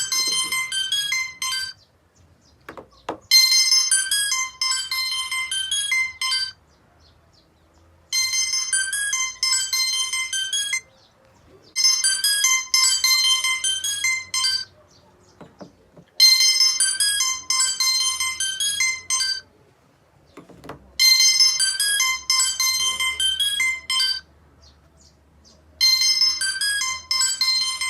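Mobile phone ringtone: a bright, high-pitched melody of quick chiming notes that plays in phrases of about three seconds, with short pauses between, over and over.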